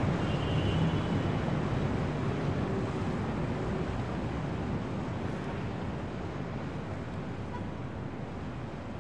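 Wind blowing in through open windows, a steady rushing noise that slowly fades.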